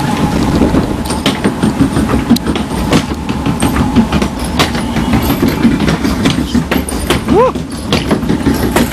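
Log flume lift-hill conveyor and its rollers clattering and rattling steadily as the boat is carried up the lift. A brief rising squeak comes about seven seconds in.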